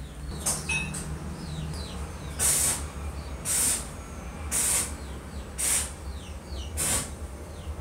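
Five short hissing rasps, about one a second, from hands working a small metal part of an old Primus kerosene stove. Small birds chirp faintly behind, over a steady low hum.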